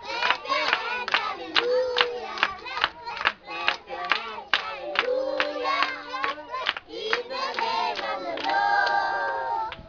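A group of young children singing together and clapping their hands in a steady rhythm. Near the end they hold one long note.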